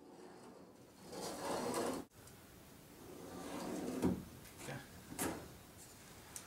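Scraping and rubbing as a pencil is drawn along a metal square across a rigid foam insulation board, in two drawn-out strokes. There are a few light knocks as the square is handled and lifted off.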